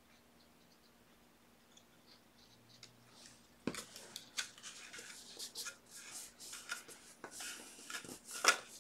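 Paper being handled and pressed by hand: a sharp tap about three and a half seconds in, then irregular rustling and scraping of paper.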